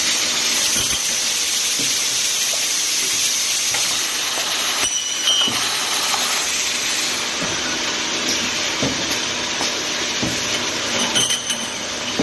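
Steady hissing machine noise with scattered light clicks and knocks, and a brief louder burst about five seconds in.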